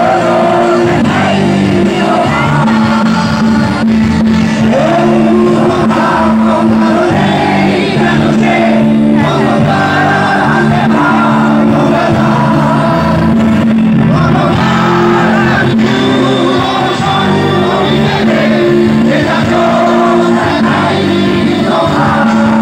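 Live rock band playing loudly with sung vocals over sustained chords, picked up by a phone's microphone from within the crowd.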